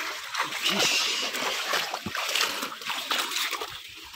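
Pond water splashing and sloshing in irregular bursts as people wade and handle a waterlogged wooden boat.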